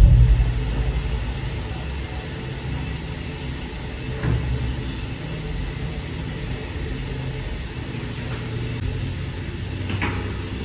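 A small motor running steadily with a hiss, opening with a sharp thump and with a lighter knock about four seconds in.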